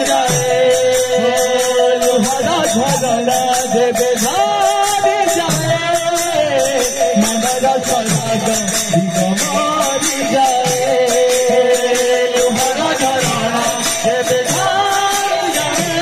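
Folk kirtan music: two-headed barrel drums and large brass hand cymbals beating a steady, dense rhythm under a wavering melody.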